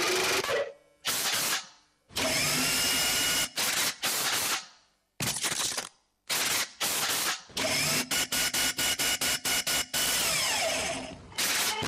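A dance routine's backing track of harsh, machine-like electronic noise effects, chopped into abrupt bursts with short silences between. A few tones glide up and down, and about two-thirds of the way through comes a rapid stutter of very short bursts.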